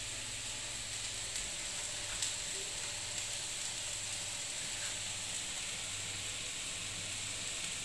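A faint steady hiss with a few soft crackles.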